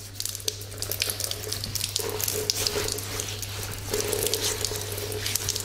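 Water running from a wall tap and splashing as a face and beard are washed under the flow, with many small spatters and drips, over a steady low hum.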